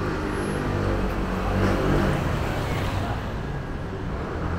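Street traffic: a motor vehicle passes with a low engine rumble and tyre noise, loudest about two seconds in.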